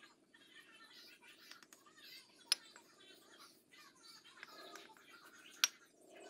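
Two sharp knocks of a bricklayer's hammer striking brick, about three seconds apart, as bricks are trimmed and set in a wall. Small birds chirp steadily throughout.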